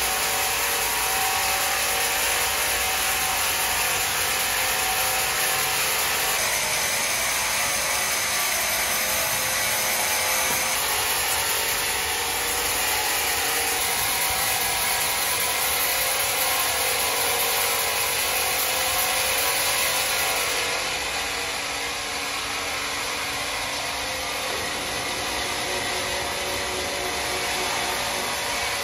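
Sawmill saw cutting through wood: a steady, high-pitched rushing noise with a faint machine hum beneath. Its tone shifts a little twice, and it gets slightly quieter about two-thirds of the way through.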